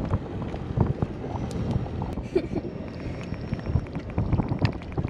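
Wind buffeting the microphone in gusts, with scattered light knocks and clicks from handling a stone crab out of a plastic crab trap.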